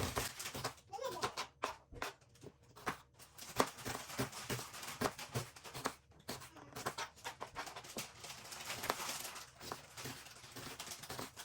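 Knife dicing onions on a cutting board: faint, irregular light knocks, a few each second.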